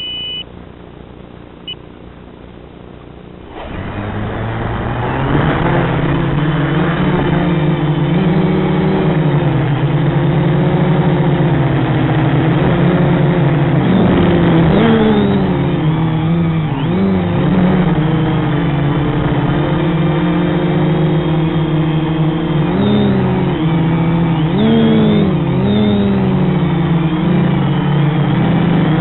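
A short beep, then about three and a half seconds in the FPV quadcopter's brushless motors spin up and run, their pitch rising and dipping again and again with the throttle.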